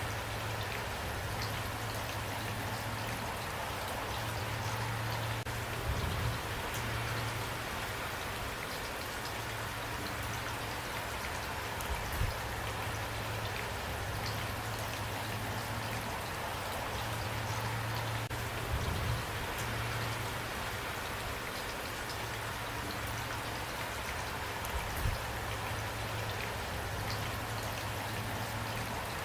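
Steady rain falling, with a brief low thump every six seconds or so.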